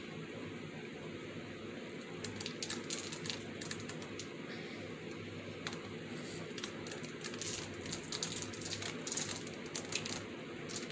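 Sprinkles dropped by the pinch onto a foam craft and the paper around it, landing as a scatter of small irregular ticks and clicks over a steady low hum.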